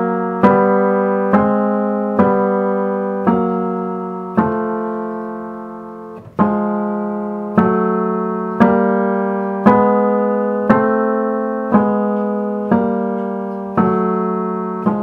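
Piano in the tenor range: two-note intervals struck one after another, about once a second with one longer pause near a third of the way through, each left to ring and decay with audible beating. The tuner is comparing the tempered intervals of the equal-temperament octave to check that their beat rates progress evenly.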